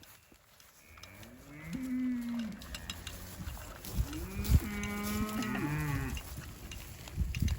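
Cattle mooing: a short moo about a second in, then a longer one lasting a couple of seconds, with a brief knock during the second moo.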